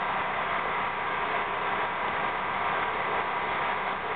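A machine running steadily, a constant hiss with a faint hum in it.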